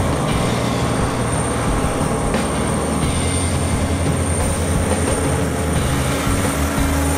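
Semi-truck's diesel engine running steadily under load as the rig drives past.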